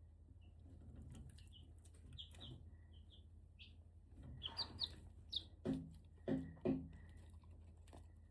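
Short high chirps from a small animal, a dozen or so, coming more often in the second half, with three short, low, pitched calls close together near the end.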